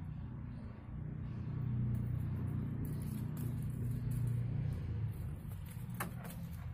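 A steady low rumble, with scattered light clicks and one sharp knock about six seconds in.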